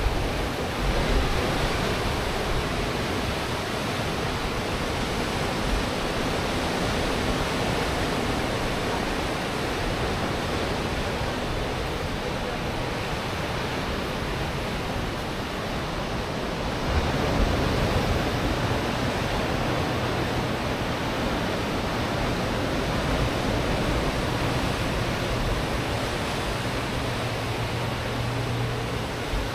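Pacific Ocean surf washing onto the shore, a steady rush with a louder wave breaking about seventeen seconds in.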